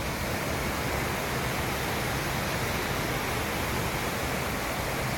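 River rapids rushing below a footbridge: a steady, even hiss of fast-flowing water.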